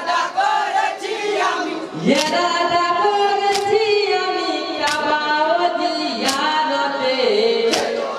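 Group of male voices singing a Bengali Muharram marsiya lament together without instruments. Five sharp slaps, about a second and a half apart, cut through the singing from about two seconds in as the singers beat their chests in unison (matam).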